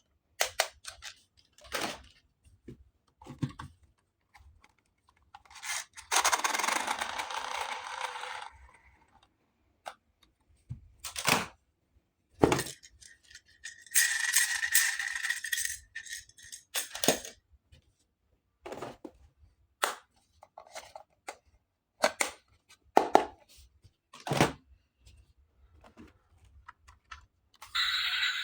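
Small plastic toy pieces and packaging handled close up: scattered clicks, taps and light rattles, with two longer rustling, tearing stretches, one about six seconds in and one about fourteen seconds in.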